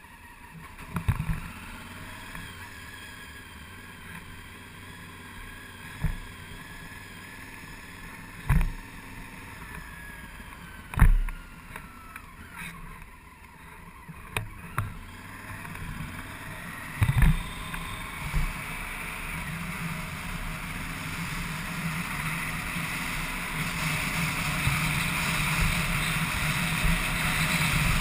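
Motorcycle ride heard from a camera on the bike: the engine running under wind rushing over the microphone, growing steadily louder as the bike gathers speed on the open road. Several short, sharp thumps break in along the way.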